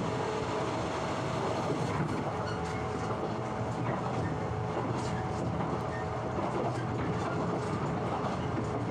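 Train running: a steady rumble with a continuous hum and scattered faint clicks of wheels on the rails.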